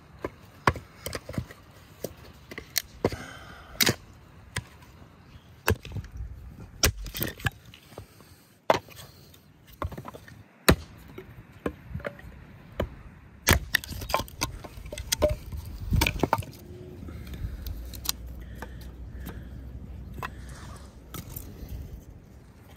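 An axe chopping and splitting firewood: a run of sharp, irregular chops and cracks of wood splitting apart. The chopping stops about two-thirds of the way through.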